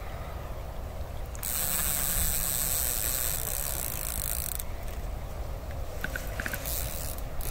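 Fixed-spool fishing reel being wound in, its gears ratcheting as a hooked catfish is played; the sound grows a little louder for a few seconds in the middle.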